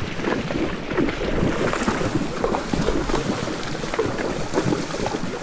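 Horses wading across a river: water splashing and sloshing in many short irregular strokes around their legs, with wind buffeting the microphone.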